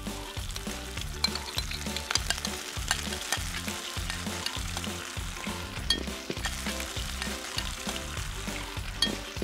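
Salmon pieces frying in oil in a pan, crackling and sizzling steadily as an egg-based mustard sauce is poured in over them.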